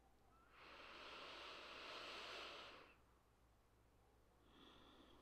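One soft, long breath of about two seconds, taken through the nose during a held yoga pose, then near silence. A fainter sound begins near the end.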